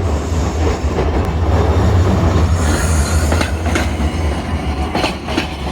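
Steady low rumble and running noise of a moving vehicle, with a brief hiss about two and a half seconds in and a few sharp clicks around three and a half and five seconds in.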